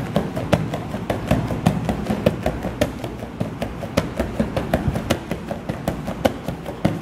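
Bare feet stepping quickly on a vinyl-covered gym mat during a crossover-step agility ladder drill: a quick, uneven patter of footfalls, about five a second.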